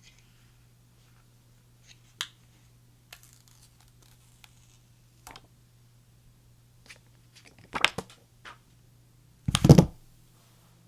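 iPhone box and packaging handled by hand: scattered small clicks and rustles, a cluster of louder taps around eight seconds in, and a louder, half-second rubbing noise about a second before the end. A faint steady low hum runs underneath.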